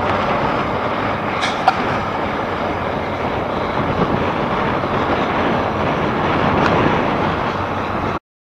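Caterpillar 627B twin-engine scraper's diesel engines running as it drives slowly over the dirt: a steady, even engine noise that cuts off abruptly near the end.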